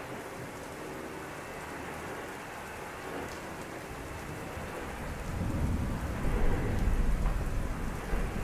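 Steady heavy rain, with a roll of thunder rumbling in about five seconds in, swelling to its loudest shortly after and easing off near the end.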